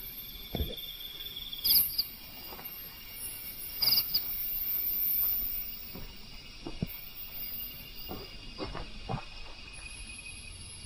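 Crickets and other night insects chirping steadily, with louder pulsed trills about two and four seconds in. Scattered soft thumps sound over them.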